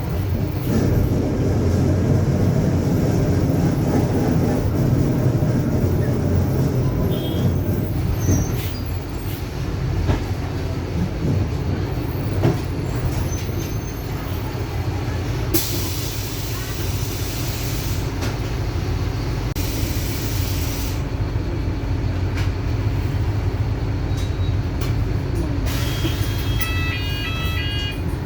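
Mercedes-Benz OF-1721 bus's diesel engine and drivetrain running steadily, heard from inside the bus, with a growl that the uploader puts down to the differential. Two bursts of compressed-air hiss come about halfway through, and a quick run of short beeps comes near the end.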